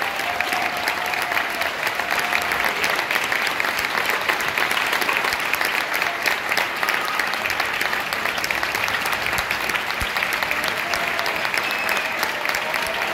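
Audience applauding steadily at the end of a concert band piece.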